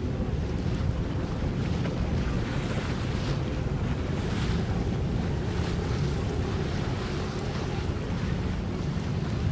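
Wind buffeting the microphone in a steady low rumble, over the wash of open water and boats.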